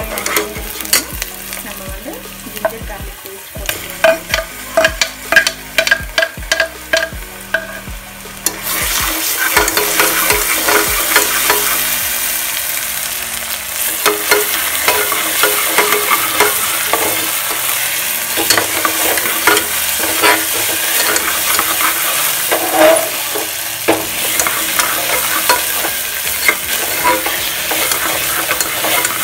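Onions frying in oil in a pressure cooker, stirred with a metal ladle: repeated knocks and scrapes of the ladle against the pot, which rings faintly. The sizzling suddenly gets much louder about eight seconds in.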